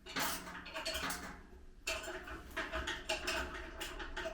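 Light, irregular clinking and rattling of metal barbecue parts and screws being handled and screwed together.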